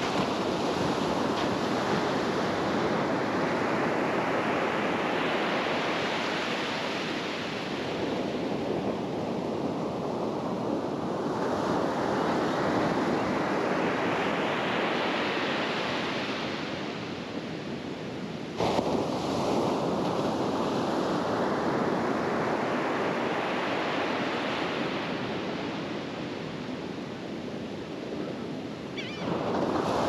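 Small Atlantic surf breaking on a sandy beach, each wave a rushing hiss that swells and fades as the foam washes up the sand, in cycles of about ten seconds. One wave breaks sharply about two-thirds of the way through, and another starts just before the end.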